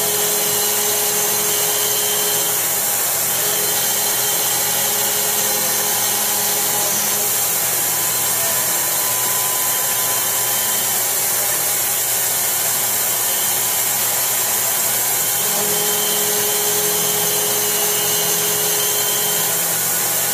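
Fadal VMC-3016 CNC vertical machining centre milling metal bar stock with an end mill on a 4th-axis rotary table: steady spindle and cutting noise with a strong hiss. A whining tone comes in for stretches of a few seconds, near the start and again for a few seconds after the midpoint.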